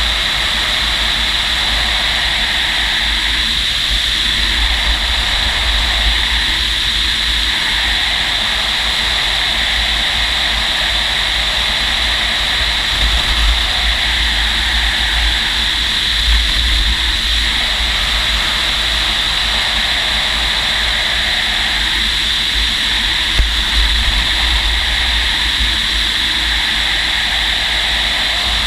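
Steady rush of airflow around a glider cockpit on aerotow, with low wind rumble buffeting the microphone and slow swells in the noise every few seconds.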